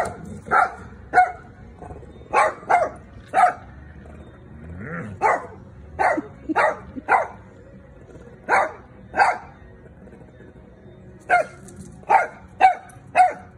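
Small dog play-barking at a larger dog: about sixteen short, sharp, high-pitched barks in quick clusters, with a pause of about two seconds after the middle.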